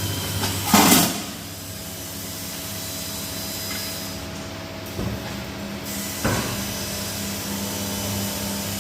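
Workshop machinery running with a steady hum. A short loud burst of noise comes about a second in, and there are two brief knocks later on.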